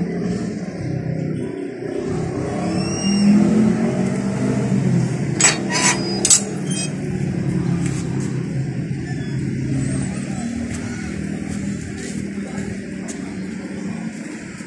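Road traffic: vehicles running past on the street, a low rumble that swells and fades, with a quick cluster of sharp clicks about five and a half seconds in.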